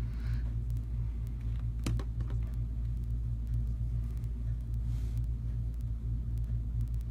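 Steady low background rumble, with faint scattered clicks and one sharper tap about two seconds in.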